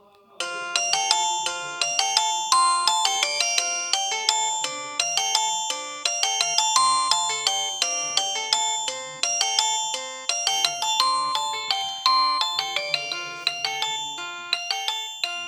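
Alcatel OT-3026X mobile phone playing one of its built-in ringtones: a quick electronic melody of short, ringing notes, often several together, starting about half a second in and stopping just before the end.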